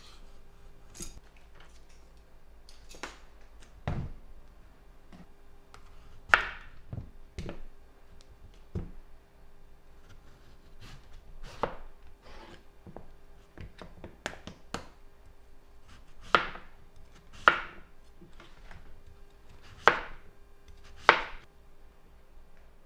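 Knife cutting through a firm, mature zucchini rampicante squash and knocking down onto a cutting board: single sharp chops at irregular intervals, several of them loud, coming closer together in the second half.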